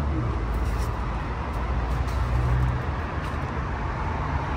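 Steady low hum and rushing noise at a gas station pump while a car is being fuelled.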